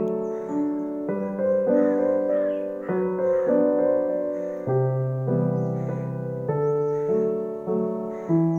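Background music: a slow piano melody with chords, a new note or chord struck about every half second to second and left to ring.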